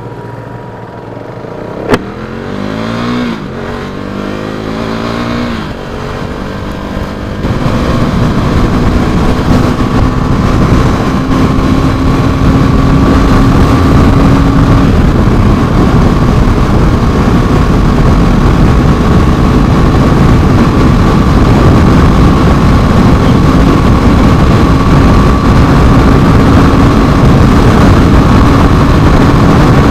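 Motorcycle engine pulling away, its pitch rising and dropping back through a few gear changes, with a sharp click about two seconds in. From about seven seconds on, loud wind noise on the microphone at highway speed covers it, the engine holding a steady drone underneath.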